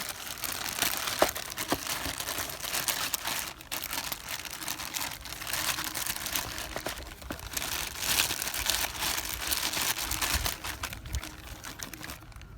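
Continuous crinkling, rustling noise with a few sharp clicks scattered through it.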